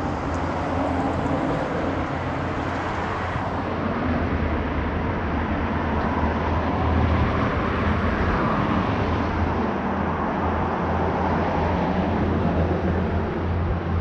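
A truck's engine idling as it warms up: a steady low hum under a haze of running noise that grows a little louder in the middle.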